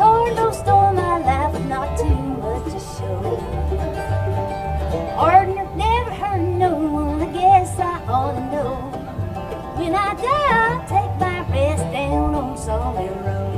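Live bluegrass band playing an instrumental break, with an acoustic lead line of wavering, sliding notes over a steady walking upright bass and strummed and picked string backing.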